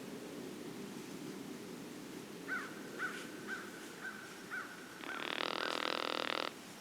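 A bird calling in the woods: six short chirps about half a second apart, then a louder, harsh call about a second and a half long that stops abruptly.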